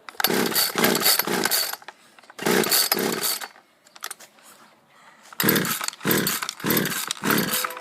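A Poulan two-stroke chainsaw being pull-started with the choke out, the engine chugging over in three rounds of quick strokes with short pauses between. The saw is being run with its fuel drained so that the carburetor is emptied of gas before storage.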